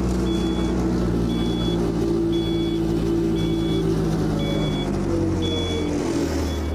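Helicopter tow tractor's engine running as it drives, with its warning beeper sounding about once a second. The engine note shifts near the end.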